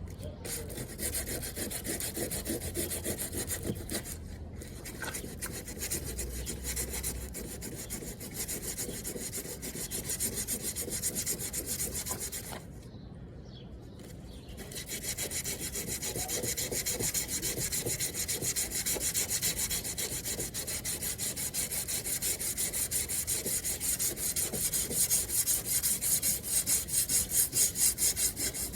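Sanding of a car's rear fender: a steady, rapid scratching of abrasive on the body panel that stops for a couple of seconds about 13 seconds in, then resumes louder, with quick even strokes near the end.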